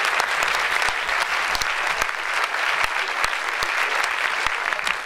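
Audience applauding: many people clapping together, steady and dense, with individual claps standing out.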